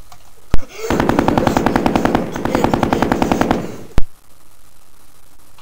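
Machine-gun sound effect: a rapid, even burst of shots lasting nearly three seconds, with a single sharp crack shortly before it and another just after.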